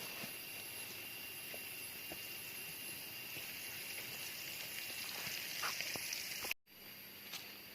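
Rainforest ambience: a steady high-pitched drone of insects with a few faint ticks and knocks. The sound cuts out completely for an instant about six and a half seconds in.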